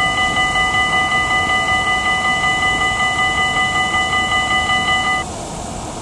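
Railroad crossing warning bell ringing rapidly, about three strokes a second, over a steady rushing noise; it cuts off suddenly about five seconds in.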